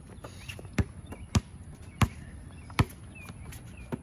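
A basketball bouncing on a hard court: four sharp bounces, about two-thirds of a second apart, in the first three seconds.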